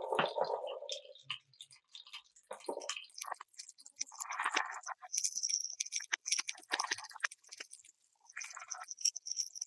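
Marbles rolling and clattering through a wooden and plastic marble run, with irregular clicks and rattles and, from about halfway through, a high rolling hiss of a marble running along track or pipe.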